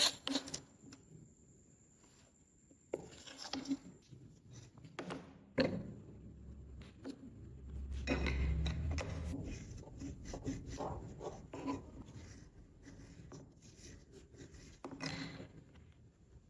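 Kitchen preparation sounds: irregular scraping and rubbing with scattered taps and knocks, heavier for a second or two around the middle.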